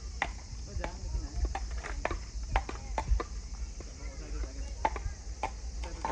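A child skipping with a jump rope: the rope slaps the ground in an uneven rhythm, roughly once or twice a second.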